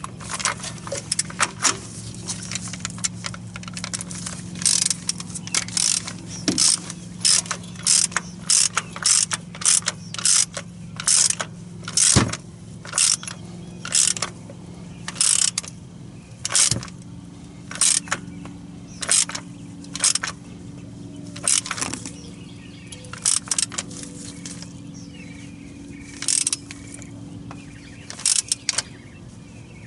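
Ratchet wrench clicking in short repeated strokes, about one or two a second with a few pauses, while a new oil pressure switch is tightened snug.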